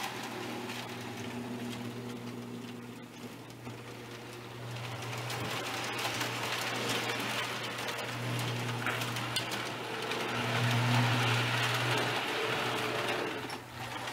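Marx O-27 tinplate toy train running in reverse on three-rail track. A steady electric hum runs under the rattle of wheels on the tin rails, which swells and fades as the cars pass, loudest a few seconds before the end.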